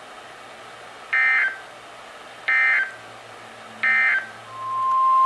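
Emergency Alert System SAME header: three short bursts of warbling digital data tones, a little over a second apart. Near the end, the steady single-pitch NOAA Weather Radio alert tone fades in, the signal that a new warning is being broadcast.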